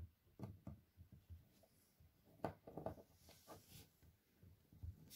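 Faint clicks and light scraping of a small screwdriver turning a tiny screw into a laptop screen's metal mounting bracket, in short irregular bursts, busiest about halfway through.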